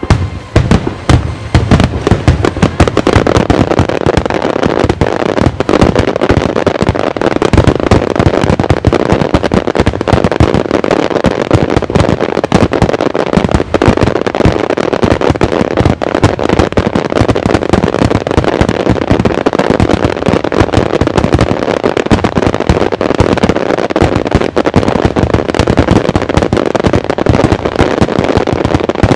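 Starmine fireworks barrage: shells launching and bursting in quick succession, many reports a second overlapping into one continuous loud volley that starts abruptly.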